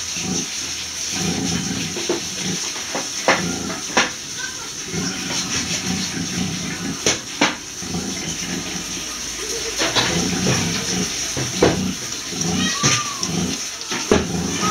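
Nursing sow grunting low in repeated bouts of short pulses while her newborn piglets suckle, with a few short high piglet squeaks and sharp clicks over a steady hiss.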